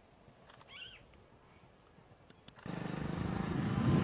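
A motorcycle engine comes in about two and a half seconds in and grows louder as it approaches. Before it is near silence, broken only by a faint brief chirp.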